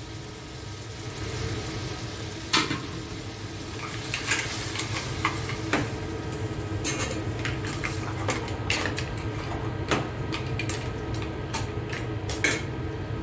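Seafood sizzling in tomato sauce in a stainless steel saucepan, while metal tongs click and scrape against the pan as they turn it. The sizzling swells a little just after the start, and the clicks begin about two and a half seconds in and come thickly in the second half.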